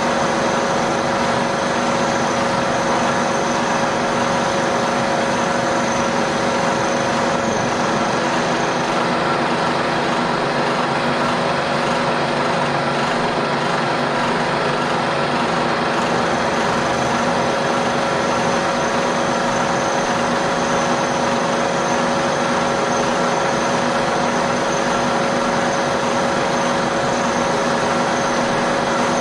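Vertical milling machine running steadily, its end mill cutting a slot into a steel toolholder block, with a constant hum and whine.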